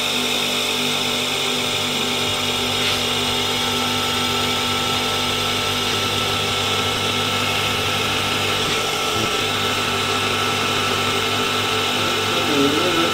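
Workshop hydraulic press running steadily under load as its ram drives a mandrel into a steel exhaust tube, slowly expanding the tube end: an even mechanical drone with a constant whine.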